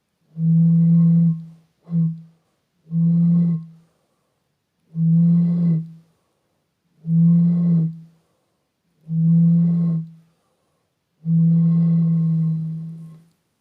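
Air blown across the neck of a beer bottle, making seven low, breathy hoots on one steady pitch. The notes come about once every two seconds, one short toot about two seconds in and the last one the longest, fading out.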